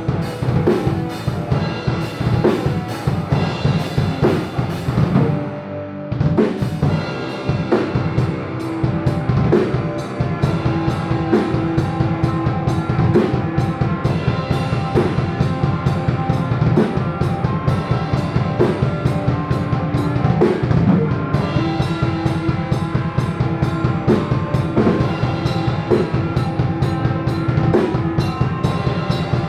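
Metal band playing live: electric guitars, bass guitar and a drum kit in a fast, steady groove. The playing drops back briefly about six seconds in, then comes back in full.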